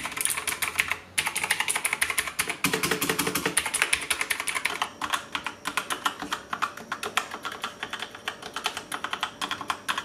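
Rapid, continuous typing on a Drevo mechanical keyboard with Outemu switches, the keys clacking in quick runs, with a short pause about a second in.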